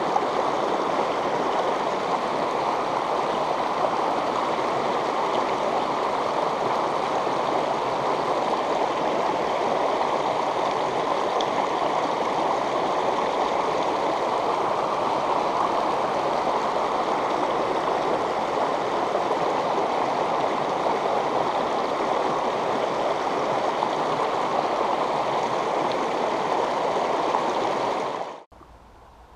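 Shallow river water rushing over a small rocky cascade, a steady loud rush. It cuts off suddenly about a second before the end, leaving only a faint background.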